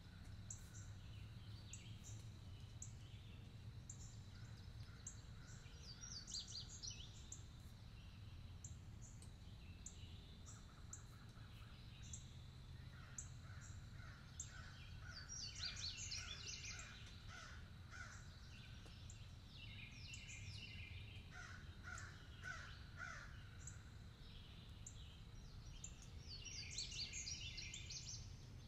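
Faint outdoor morning birdsong: crows cawing now and then, with smaller birds chirping between the caws, over a steady low background rumble.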